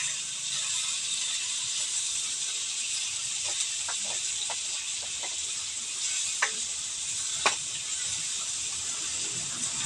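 Food sizzling steadily in a wok, with a spatula scraping and clinking against the pan a few times.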